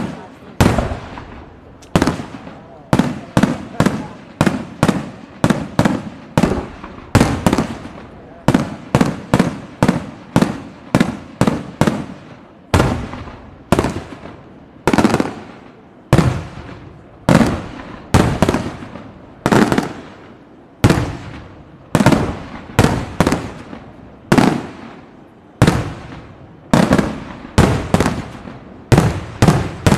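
Aerial fireworks shells bursting in steady succession, about one or two sharp bangs a second, each trailing off in an echo.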